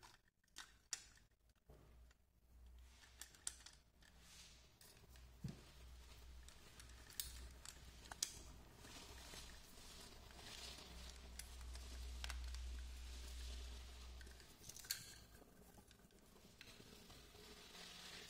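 Faint, scattered clicks and knocks of a plastic RC drift car chassis being handled and its parts pressed into place.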